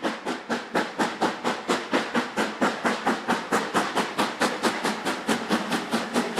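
Steam locomotive working hard, its exhaust chuffing in a fast, steady beat of about six beats a second.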